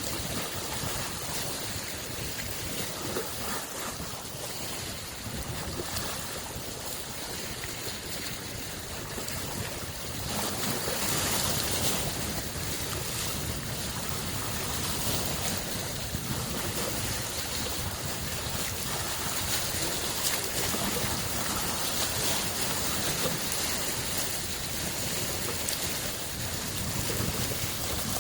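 Small lake waves washing and lapping against the shore in a continuous, steady wash, growing slightly louder about ten seconds in.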